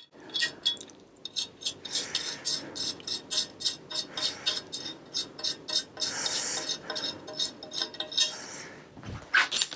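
Metal hand tool working on an old mountain bike's parts: a long run of quick, regular metallic clicks, about five a second, with scraping in between.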